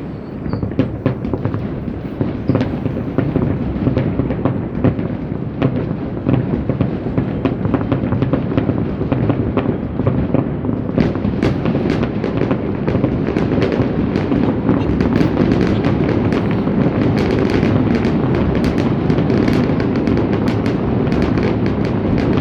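Fireworks display: many shells bursting with booms and crackles over a continuous rolling rumble. It grows denser and louder about halfway through, into a near-continuous barrage.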